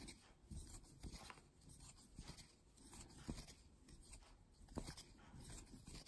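Near silence with faint rustling and a few light ticks of a crochet hook pulling yarn through stitches.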